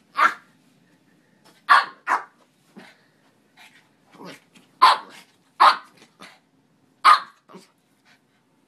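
Small white dog barking in play, with about six sharp, short barks and a few quieter yaps between them.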